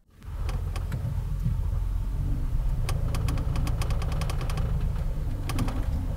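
Ford Police Interceptor Utility SUV rolling slowly into a driveway with its engine running low. Bursts of creaking and clicking from the chassis come about three seconds in and again near the end; the owner puts these down to the body flexing as it goes over the driveway lip.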